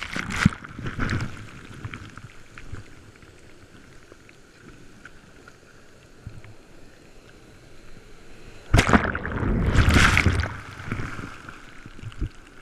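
Surf whitewater washing over a bodyboard-mounted camera: a splash at the start, then a quieter steady fizzing wash of foam. About nine seconds in a sudden loud surge of broken wave rushes over the camera for about two seconds, followed by a single thump near the end.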